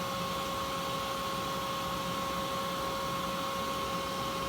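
Car engine running steadily at idle with a constant high whine over a low rumble, while the patched exhaust is checked for leaks.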